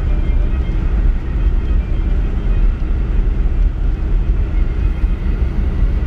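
Steady low rumble of a car driving, heard from inside the cabin: engine and road noise.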